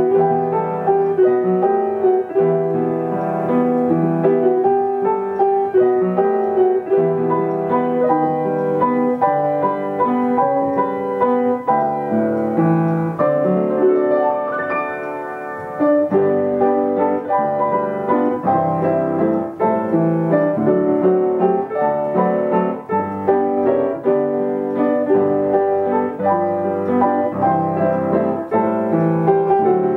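Upright piano playing a medley of old popular songs, full chords and melody. The playing turns softer for a few seconds about midway, then comes back at full volume.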